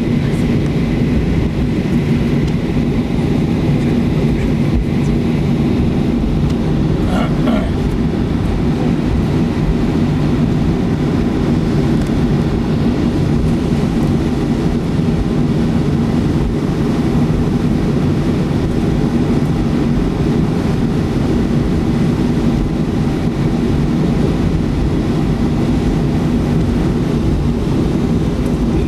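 Cabin noise inside a Boeing 737-300 moving on the ground after landing: a steady low rumble from its CFM56-3 turbofan engines at low power and the airframe rolling over the taxiway.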